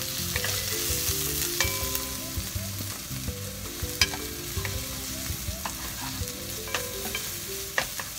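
Sliced onions sizzling in hot oil in a nonstick wok, stirred with a wooden spatula. The spatula scrapes through them and knocks sharply against the pan a few times, each knock ringing briefly.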